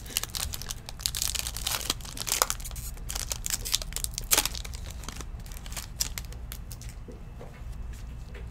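Trading-card pack wrappers being torn open and crinkled by gloved hands, a dense crackling that thins after about five seconds into scattered light rustles as the cards are handled.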